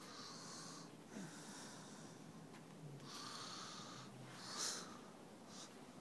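Quiet, slow breathing close to the microphone: a few soft breaths with pauses between them.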